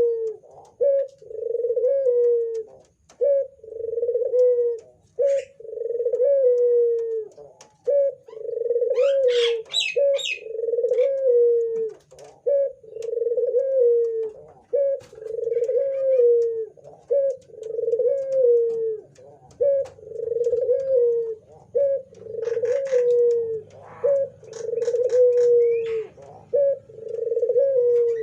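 A burung puter (Barbary dove) cooing over and over, about one coo every two seconds. Each coo is a short note followed by a longer, falling note. A few faint higher chirps come about ten seconds in.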